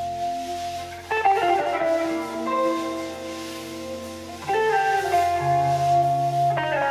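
Electric guitar playing sustained, ringing chords in an improvised piece. A new chord is struck about a second in and another about two-thirds of the way through.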